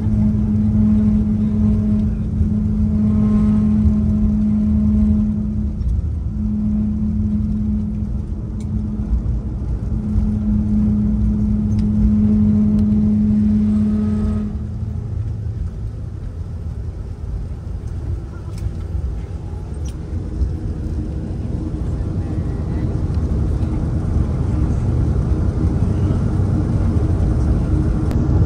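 Cabin noise inside a Boeing 737-500 around landing: a steady rumble of its CFM56 engines and airflow, with a low droning hum that breaks off briefly and then stops about halfway through, after which the rumble builds again toward the end.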